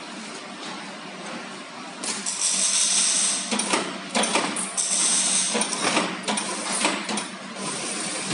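A clear plastic sheet crinkling and rustling as it is handled, in irregular loud stretches starting about two seconds in. A faint steady hum runs underneath.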